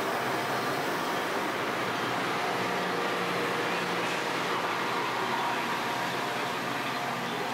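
Steady noise of a Metra commuter train in the station under heavy rain: a low, even engine hum beneath the hiss of the downpour.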